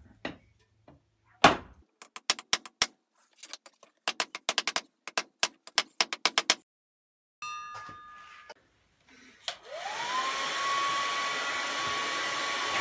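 Hand hammer striking hot rebar on a small steel anvil, upsetting the end: one heavy blow, then a quick run of lighter blows for several seconds. After a pause, the hair dryer that blows the homemade forge switches on, its whine rising in pitch and settling into a steady rush of air.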